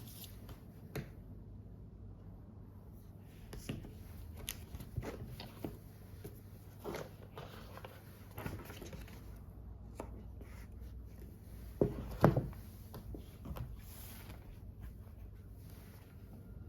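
Small handling sounds in a quiet room: scattered light taps and clicks, with two louder knocks close together about twelve seconds in.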